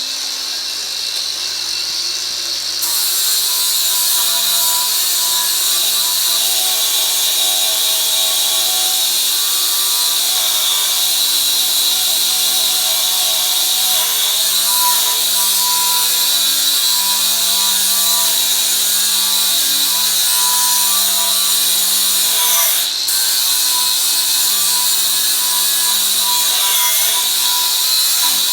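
Hyper Tough 20V 4.5-inch cordless angle grinder with a grinding pad, running steadily under load as it sands old paint off a stair railing. Its steady whine dips briefly near the end, then picks up again.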